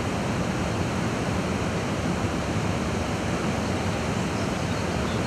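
Steady, noisy rushing of white water pouring through a river weir, an even wash of sound with no breaks.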